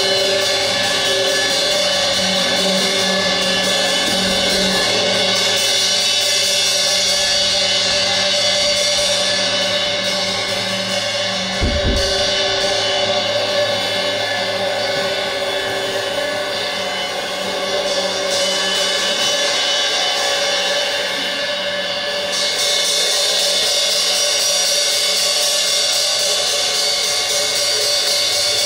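Live improvised percussion: cymbals and other metal percussion ringing in a steady wash of many held tones. There is one low thump about twelve seconds in.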